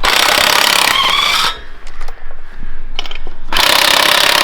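Impact wrench run in two bursts, the first about a second and a half long with a rising whine as it spins up, the second starting a little before the end.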